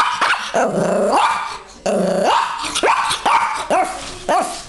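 Petit Brabançon dog giving a rapid string of growls, barks and yips, their pitch bending up and down, while in a play-bow: play-growling.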